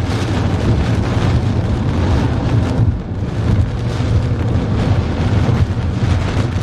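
Loud, steady rumble of a car driving through a squall line's strong wind and rain, heard from inside the vehicle, with a heavy low drone and a hiss above it.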